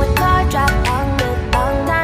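Music: a melody over a steady, quick beat.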